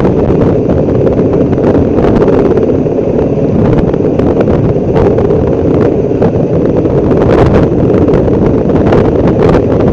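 Loud, steady low noise with no distinct tones or events.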